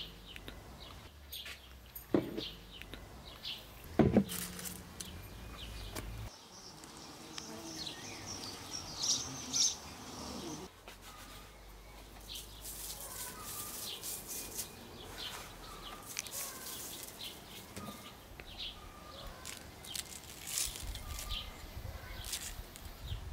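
Small birds chirping over a faint outdoor background, with two sharp knocks in the first few seconds as things are handled at the table.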